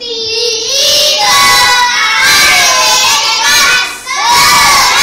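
A group of young children calling out loudly together in high voices, in one long drawn-out stretch and then a shorter call about four seconds in.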